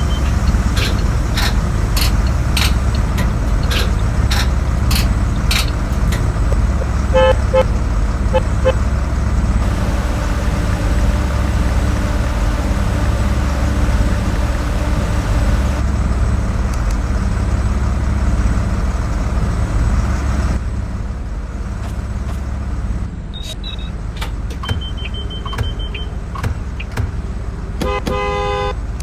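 School bus running with a steady low engine and road rumble. A run of clicks comes in the first few seconds, then a few short horn toots, and a thin high beep near the end. A short horn blast sounds just before the end.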